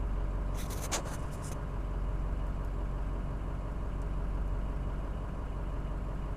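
Diesel pickup truck engine idling steadily, heard from inside the cab. A short burst of clicks and rustling about a second in.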